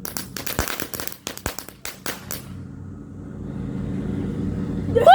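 Firecrackers crackling in a rapid run of sharp pops that stop about two and a half seconds in, followed by a low rumble that gradually swells louder.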